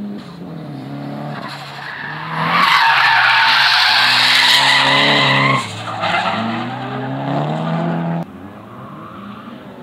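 A race car drifting through a corner, its engine revving up and down while the tyres squeal loudly. The screech is loudest for about three seconds in the middle, then the sound cuts away suddenly about eight seconds in.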